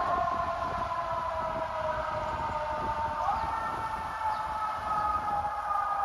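Fire engine siren sounding as the engine drives away, its tone sliding slowly lower through the whole stretch, over street traffic rumble.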